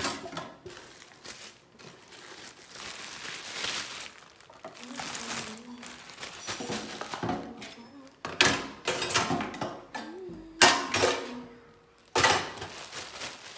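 Plastic bag rustling and crinkling as it is handled, with a few sharper, louder crackles in the second half.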